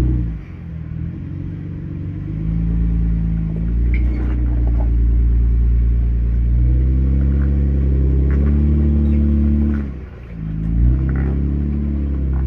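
Off-road 4x4's engine running under load while rock crawling, the revs dropping sharply twice and climbing back up, with a few light knocks and clatters over it.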